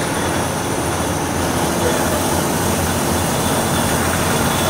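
Volvo B6BLE single-deck bus heard from inside the saloon while under way: a steady mix of engine running and road noise.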